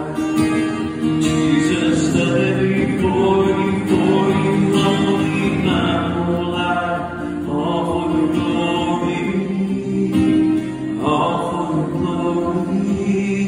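Christian worship song with singing.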